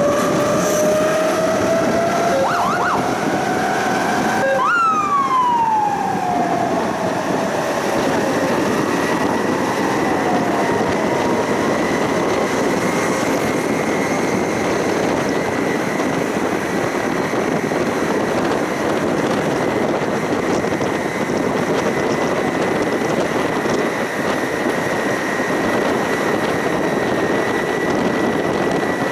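Electric tram accelerating away from a stop, heard from inside the car. Its traction drive whines in two rising tones that break about four and a half seconds in and slide down in pitch over a few seconds. It then settles into steady rolling noise on the rails with a faint high whine that climbs slowly.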